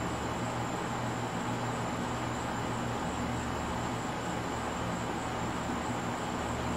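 Steady outdoor night background: a low, even hum under a hiss, with a thin constant high-pitched whine and no distinct events.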